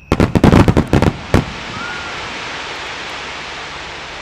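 Fireworks bursting: a rapid volley of loud bangs in the first second and one more bang just after, then a steady hiss that slowly fades.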